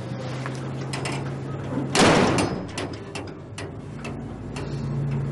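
A glass-panelled door with a wrought-iron grille shuts with a loud bang about two seconds in, among smaller clicks and knocks. A steady low hum runs underneath.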